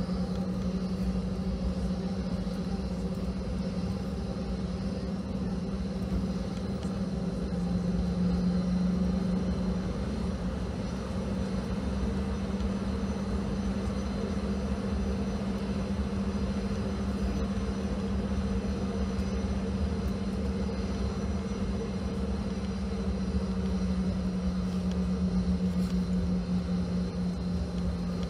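Cabin noise of a Boeing 717 taxiing: the steady hum of its rear-mounted Rolls-Royce BR715 turbofans over a low rumble. The hum swells slightly twice.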